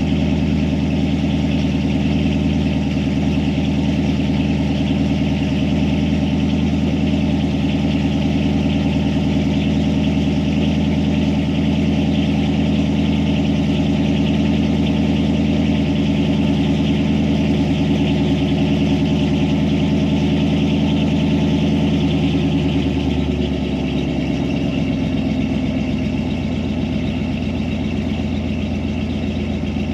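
A 1993 Ford Lightning's stock 5.8-litre V8 idling steadily after a cold start in about 12°F weather. About three-quarters of the way through, the idle speed drops to a lower, slightly quieter idle.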